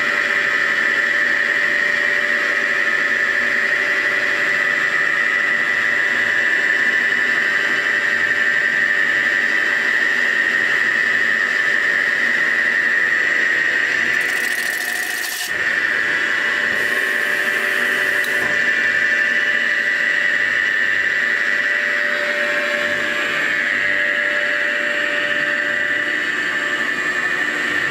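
CNC mill's boring bar cutting a cylinder bore in a Lotus 910 aluminium engine block, giving a steady high-pitched squeal. The squeal breaks off briefly about halfway through, then carries on.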